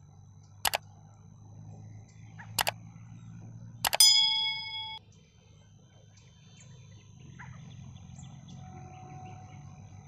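Three click sound effects, the last followed by a bell-like ding that rings for about a second and cuts off abruptly: the sound effect of a subscribe-button and notification-bell animation.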